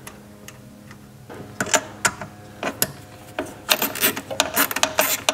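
A few separate metal clicks, then a fast run of ratchet clicking in the last second and a half as a small nut is driven down onto a bolt with a hand ratcheting driver.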